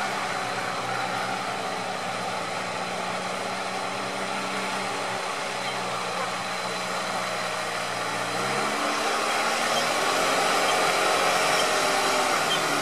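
Engine of a lifted UAZ off-roader running steadily at low revs as it wades through a muddy pond, then revving higher about eight seconds in and staying louder.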